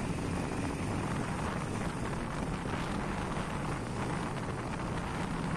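Motorcycle engine running at a steady cruise, with wind and road noise on the microphone of the moving bike.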